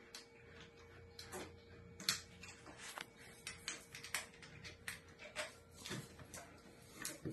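Irregular light metallic clicks and taps as long through-bolts and a smart lock's interior mounting plate are handled and fished into alignment with the lock's front assembly.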